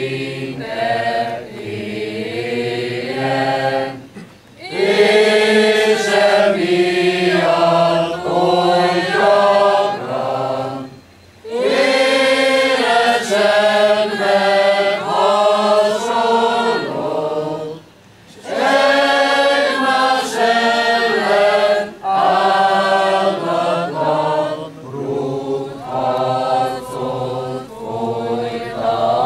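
Mixed choir of women's and men's voices singing a Hungarian hymn unaccompanied, in long phrases broken by short pauses.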